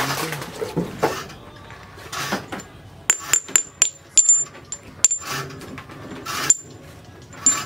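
A small knife scraping and shaving a wooden handle blank on a stump anvil. From about three seconds in, a quick run of sharp clinks follows, each with a short high metallic ring.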